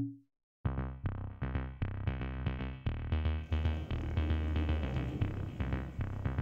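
Electronic background music with a steady drum-machine beat and synthesizer notes, starting under a second in and filling out with brighter treble about halfway through. A brief tone sounds at the very start.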